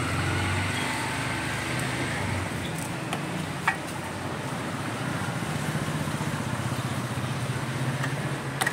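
Steady low hum, with a few short, sharp clicks as motorcycle handlebar wires are handled and worked with pliers during a wiring repair.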